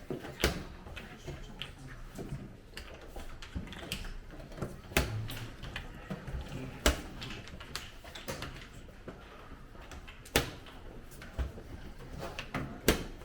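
Sharp clicks and knocks from play at a draughts board, about five loud ones a few seconds apart with lighter taps between, over a low room murmur.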